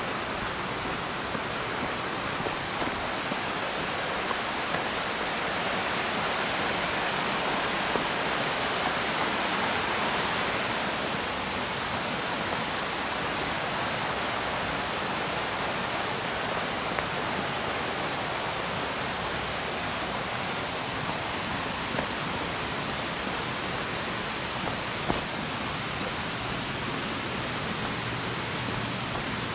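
Steady, dense rush of falling water from a waterfall, swelling slightly about a third of the way through.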